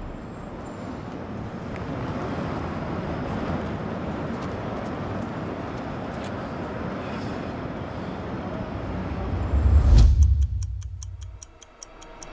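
City street traffic noise, a steady haze of passing cars with a brief low rumble about ten seconds in. The traffic then fades out under a quick, even ticking in the last two seconds or so.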